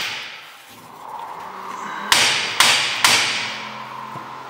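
Saab B204 engine's aluminium sump struck three times in quick succession, each sharp blow followed by a brief metallic ring, as it is knocked up onto its locating dowel.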